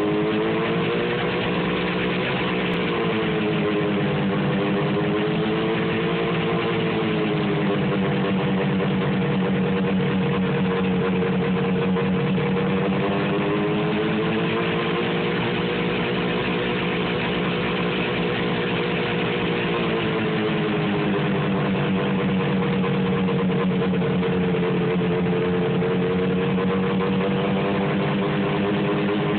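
1973 John Deere JDX8 snowmobile's 440 cc two-stroke engine idling roughly, its idle speed sagging and picking back up every few seconds.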